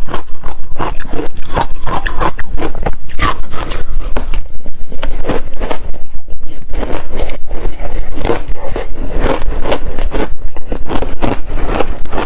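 Ice being bitten and chewed close to the microphone: loud, rapid crunches, several a second, without a break.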